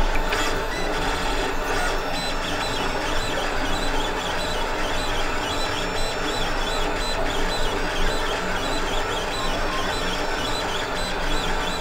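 FDM 3D printer printing plastic gears: its stepper motors whir and whine in continuously shifting tones as the print head and bed move.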